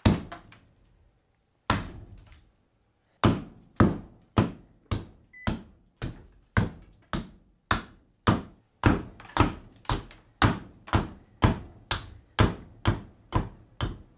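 A hatchet chopping into a branch of green black walnut on a wooden chopping block: a string of sharp thunks. They come a few at a time at first, then about two a second.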